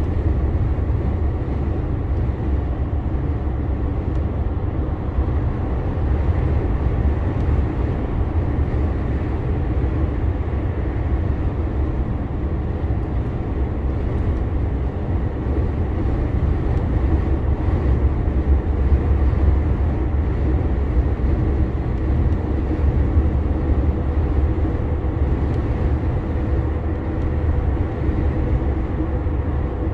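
Steady low drone of a DAF CF 480 truck's diesel engine with road noise as the truck drives along, with no sudden changes.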